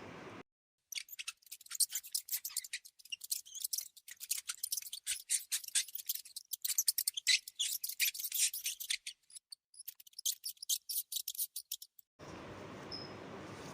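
A rat or mouse squeaking: rapid, high-pitched chittering squeaks and clicks in quick runs, starting about a second in with a couple of brief pauses, and stopping about a second before the end.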